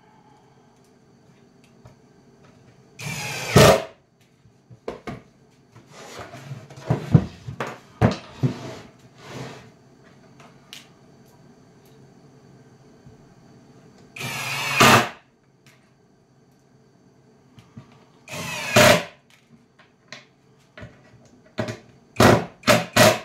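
Cordless drill driving drywall screws into a plywood drawer box: three runs of about a second each, then a few quick short bursts near the end as a screw is seated. Between the runs come small clicks and rattles of screws being picked up and handled.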